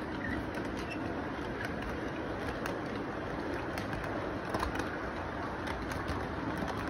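Model train running past on its track: a steady rumble from the locomotive's motor and wheels, with irregular clicks as the wheels cross the track joints.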